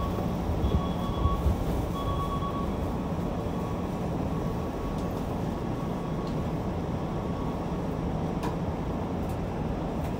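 A Keikyu 600 series electric train standing still at a platform, its on-board equipment giving a steady low hum. A high beep repeats about once a second for the first few seconds, then stops.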